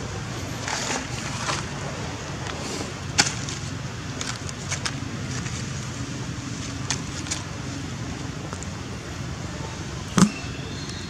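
Steady low wind rumble on the microphone, with scattered rustles and clicks of dry leaves as a young macaque forages among them. The sharpest click comes about ten seconds in.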